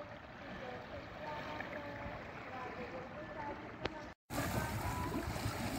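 Small fishing boat's inboard engine running under a faint, wavering voice-like melody. The sound drops out for a moment about four seconds in and comes back louder.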